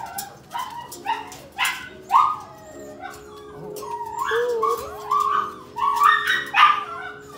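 Puppies whining and yipping: many short, high cries that rise and fall in pitch, some drawn out into whines. Sharp clicks of claws on the metal kennel edge run among them.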